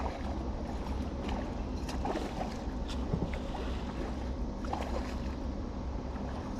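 Steady low hum and water noise aboard a fishing boat, with scattered small knocks and clicks and one sharper knock at the very end.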